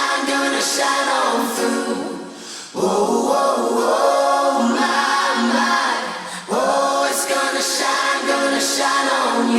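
Unaccompanied vocal music: several voices singing sustained harmonies in phrases, with short breaks about three seconds in and again about six and a half seconds in.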